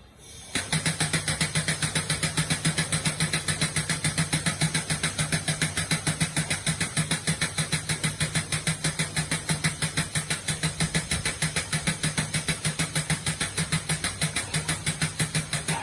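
Husky air-operated diaphragm pump starting up about half a second in and running fast, its air valve exhausting in rapid, even pulses of about six a second, with its air kit freshly replaced.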